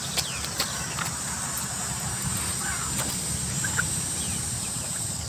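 Outdoor countryside ambience: a steady high insect drone and a low wind rumble, with a few sharp clicks of someone chewing and picking at grilled fish, loudest twice in the first second, and a few short bird chirps.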